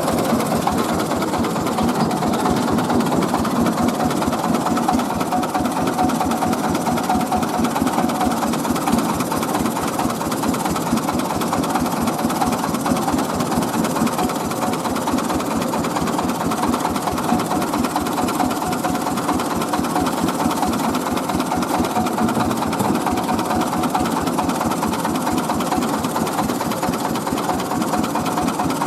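Mobile rice-milling machine running steadily, its engine driving the milling works with a fast, even beat and a constant hum.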